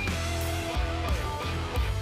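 Background music with guitar over a steady bass line.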